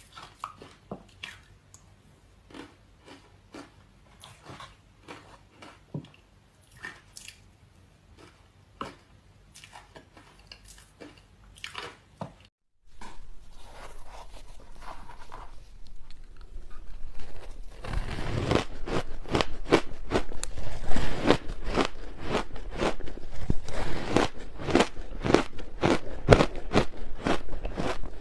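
Close-up biting and chewing of hard ice chunks: scattered sharp crunches at first, a brief cut to silence around the middle, then a fast, dense run of louder crunching through the last third.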